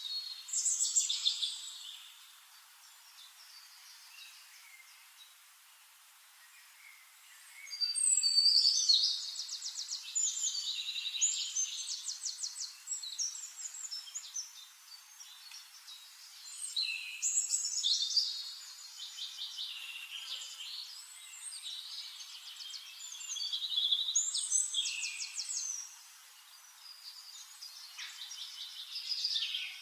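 Songbirds singing in bursts of rapid trills and chirps, several high-pitched phrases a few seconds apart with quieter gaps between, over a faint steady hiss.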